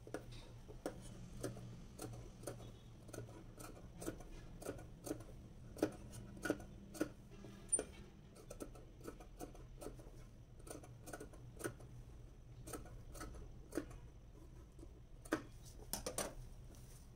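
Large tailoring shears cutting through cloth: a run of crisp snips, about two a second, with a quick flurry near the end.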